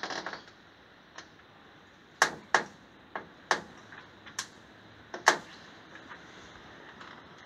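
Handling noise: a brief crackle at the start, then about six sharp clicks and taps at uneven spacing over a faint steady hiss.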